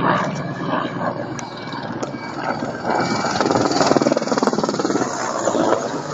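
Helicopter rotor and engine noise, a dense rapid chopping that grows louder about halfway through.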